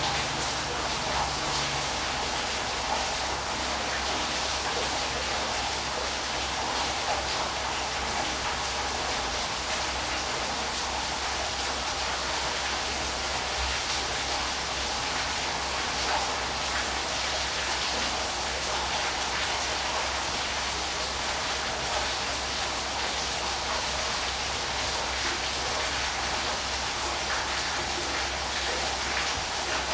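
Waterfall running: a steady, even rush of falling water with no breaks.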